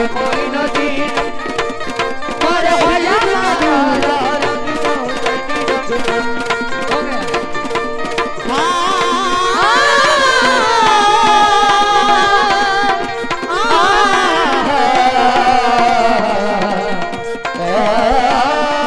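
Qawwali music: a harmonium holding chords under rapid hand-drum playing, then about eight seconds in a woman's voice comes in singing long, held, sliding notes as the drumming drops back.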